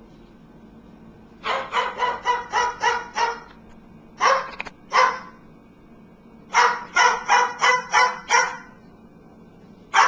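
White cockatoo mimicking a dog's bark: a quick run of about seven barks, two single barks, then another run of about six.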